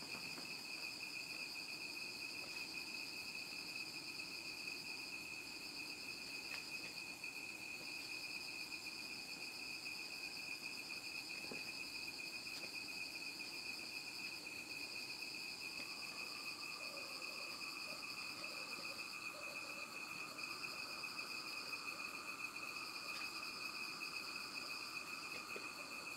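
Steady high-pitched insect trill that runs on without a break. A fainter, lower tone joins in about halfway through.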